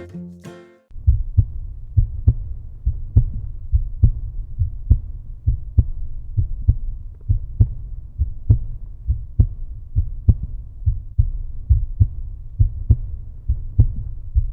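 A low, steady thumping beat of about two thuds a second, like a heartbeat, as part of the video's end music; it cuts off suddenly at the end.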